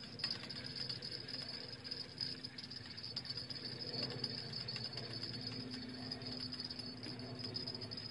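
Insects chirring in a steady, high-pitched chorus.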